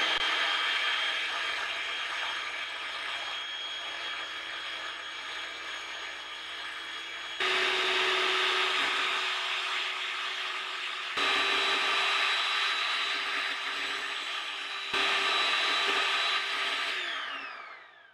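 Electric hand mixer running, its beaters whisking egg whites in a glass bowl: a steady motor whine that jumps in level abruptly three times. Near the end the pitch falls as it winds down and stops.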